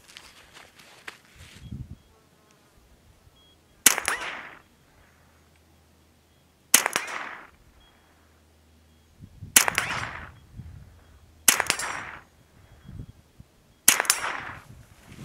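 Five .22 LR shots from a Ruger 10/22 rifle, unevenly spaced two to three seconds apart, each followed by a short echo.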